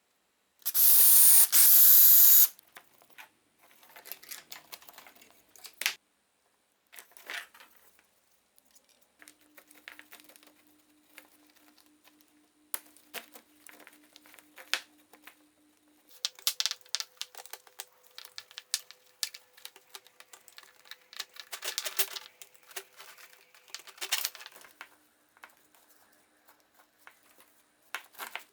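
Workshop handling sounds. A loud burst of hissing noise lasts about two seconds, starting just after the beginning. Then come scattered clicks, taps and rustling as tools and wood are handled and set down.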